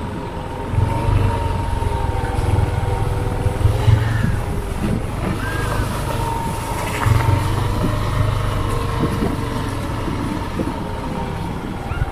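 Motorcycle engine running steadily at low speed while being ridden, with wind rumbling on the microphone in gusts.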